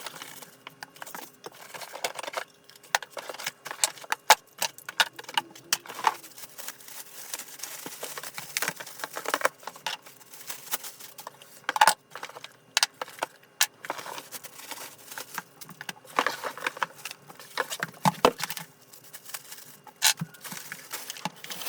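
Plastic pressure-washer parts and packaging being handled, with irregular clicks, knocks and rattles and rustling between them.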